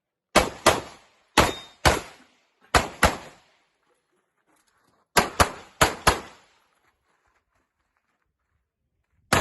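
Glock pistol fired in five quick double taps, ten shots in all, the two shots of each pair about a third of a second apart. There is a pause of about two seconds after the third pair, then two more pairs in quick succession.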